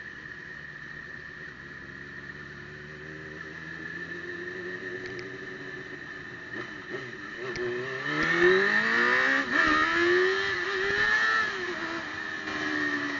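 Motorcycle engine running at low revs, then accelerating hard from about eight seconds in. Its pitch climbs, dips briefly at a gear change, and eases off again near the end.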